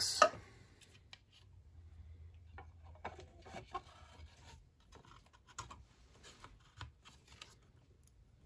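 A treadmill power-supply circuit board being pushed down into a snug-fitting black plastic project box: faint scraping and rubbing of board edges against the plastic walls, with small scattered clicks and knocks.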